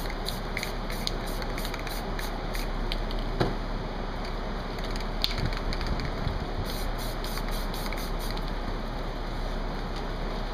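Aerosol spray paint can hissing steadily as paint is sprayed in sweeping passes.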